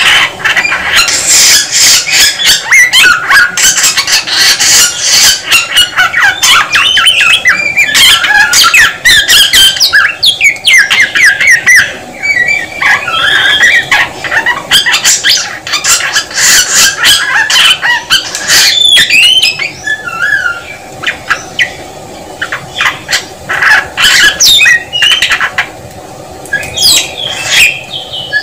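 Samyong songbird singing up close: a long, rapid, varied run of whistled notes, chatters and sharp clicks, a little quieter about two-thirds of the way through.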